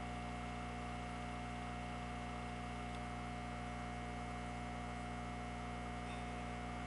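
Steady electrical hum with a constant higher tone above it, unchanging throughout.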